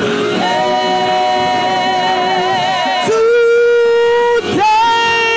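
A woman singing a gospel song into a microphone, drawing out long held notes with vibrato and sliding between them.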